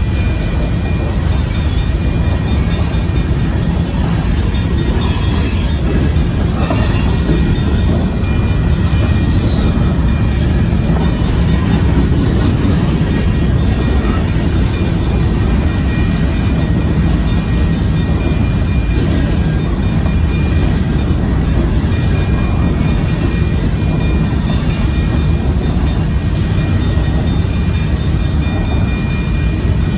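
Freight cars of a Union Pacific grain train, covered hoppers, rolling past at a grade crossing: a steady, loud rumble of steel wheels on rail. A thin high tone comes and goes above it.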